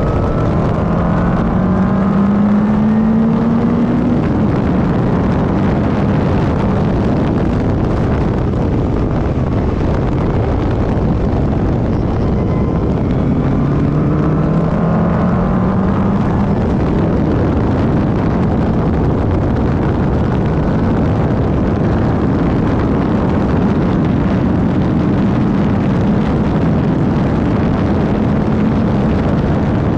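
Van Diemen RF01 Formula Ireland racing car's engine under hard acceleration, its note climbing in pitch about a second in and again near the middle, over a constant rush of wind and road noise.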